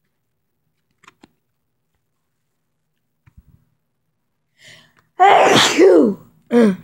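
A person sneezing loudly about five seconds in, after a faint breath in, followed by a shorter second burst just before the end.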